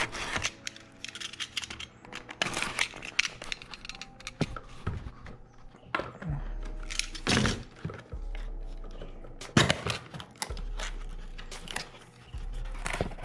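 Cardboard packaging being handled and cut open with a plastic snap-off utility knife: irregular scrapes, rustles and tearing of cardboard, with a few knocks.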